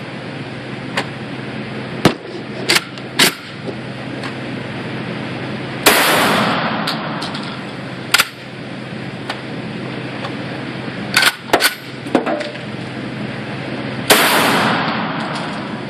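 Gunfire in an indoor concrete shooting range. Two loud shots come about eight seconds apart, a SAIGA 12-gauge semi-auto shotgun firing slugs, each followed by a long echo. Several shorter, sharper reports fall between them, three in a quick cluster about eleven seconds in, over a steady low hum.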